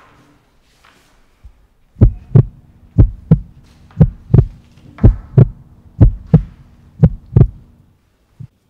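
Heartbeat sound effect: six slow double beats (lub-dub), about one pair a second, starting about two seconds in, over a faint steady low drone.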